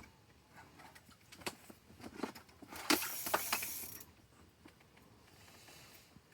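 Fishing reel and tackle being worked while playing a hooked pike: scattered clicks and rattles, with a short hissing rush about three seconds in.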